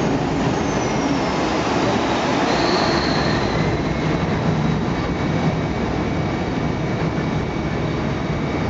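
Steady loud rumble of a workboat's diesel engine and its propeller wash churning the canal water, with a faint high whine that slowly glides in pitch.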